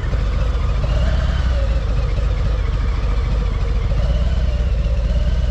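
Harley-Davidson motorcycle V-twin engines running at idle, a heavy low rumble whose pitch wavers slightly as one bike is eased into a parking space.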